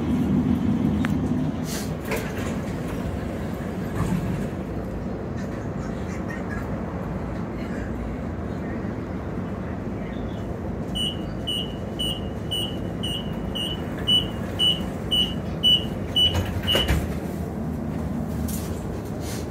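Door-closing alarm on a 2015 Inekon 121 Trio streetcar beeping about twice a second for some six seconds, then the doors sliding shut with a thump. The car's steady low hum runs underneath.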